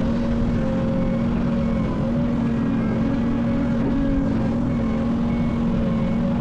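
Heavy diesel earthmoving machinery running at a steady engine speed, a constant deep hum that does not rise or fall.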